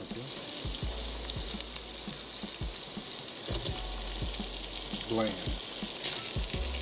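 Sliced peppers and garlic frying in butter in a skillet with a steady crackling sizzle. Soft knocks come every second or so as sliced Italian sausage is dropped into the pan, and a brief voice-like sound comes about five seconds in.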